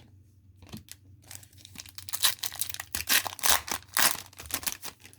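Foil trading-card pack wrapper crinkling and tearing as it is opened, a close run of crackles from about a second in until near the end.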